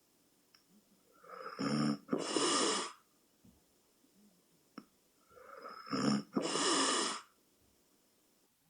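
A person snoring in sleep: two breaths about four seconds apart, each a rasping snore followed by a breathy rush.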